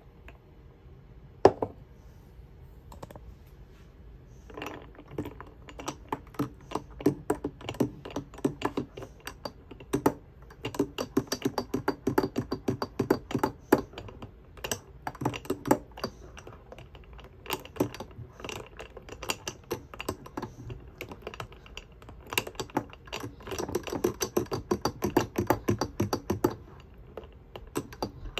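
A spoon stirring ice cubes in a tall glass drink: one sharp knock about a second and a half in, then rapid clinking and clicking of ice against the glass in bursts of a few seconds.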